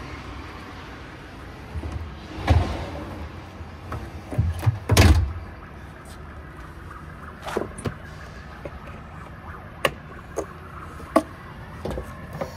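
Slide-out gas-bottle tray on an RV being pushed back into its storage compartment, with two heavy thuds about two and a half and five seconds in. The metal compartment door is then shut, and its chrome latch handle clicks several times near the end.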